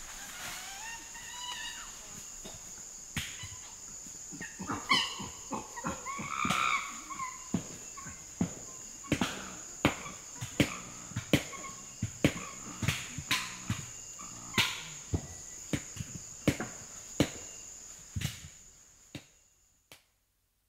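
Chimpanzee calls over a steady high insect drone of the forest. From about nine seconds in comes a series of sharp knocks, roughly one and a half a second, and then the recording fades out.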